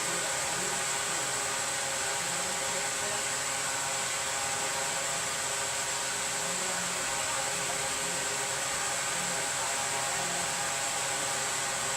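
Steady blower-like hiss with a faint electrical hum underneath, unchanging throughout.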